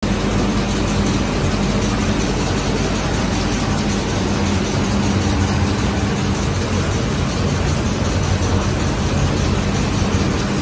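Oyang P Series roll-to-piece digital printing machine running: a steady mechanical hum with a constant low tone over an even whirring noise.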